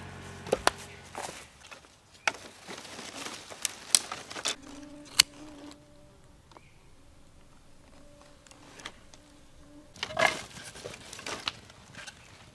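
Split firewood logs knocking against each other as they are stacked by hand, a handful of sharp knocks in the first five seconds. Then a faint steady buzz for several seconds, and about ten seconds in, a short burst of rustling clatter as wood is laid onto a small campfire.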